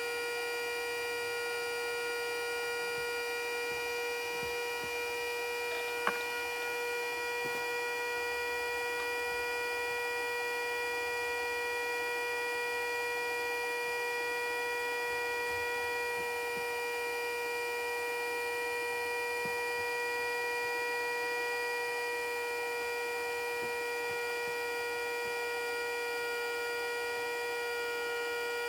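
Custom-built Federal Signal Model 2A siren sounding a steady alert tone, holding one pitch without rising or falling. A single short click about six seconds in.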